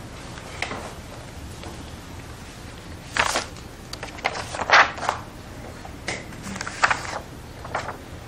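Photo prints being handled and looked through: about eight short rustles and taps scattered through, the loudest near the middle, over a steady low room hum.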